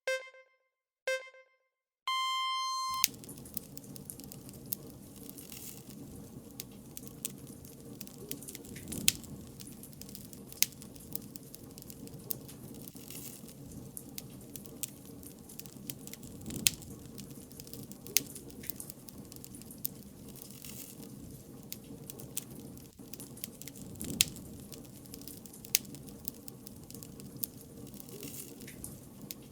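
Electronic countdown beeps: two short beeps a second apart, then a longer, higher beep about two seconds in. A crackling bonfire follows, with a steady hiss and scattered snaps and pops.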